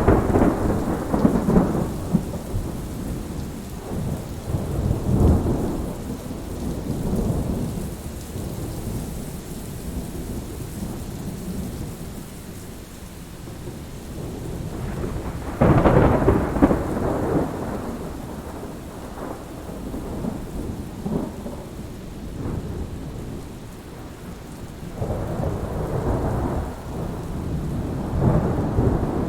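Thunderstorm: steady rain with rolling thunder. A sharp thunderclap at the start and another about 16 seconds in, with lower rumbles rolling in between and again near the end.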